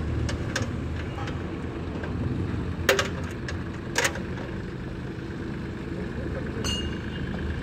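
Tractor engine running steadily as the tractor rolls on solid steel wheels with toothed rims. A few light clicks come near the start, two louder sharp knocks about three and four seconds in, and another click near the end.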